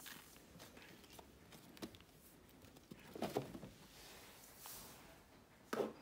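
Baby monkey suckling from a feeding bottle: faint soft clicks and mouth smacks, with a brief louder rustle about three seconds in and another just before the end.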